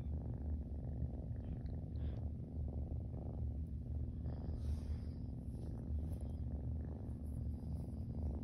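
Ten-week-old Siamese kitten purring contentedly, a steady, low, pulsing purr that runs without a break while its belly is rubbed.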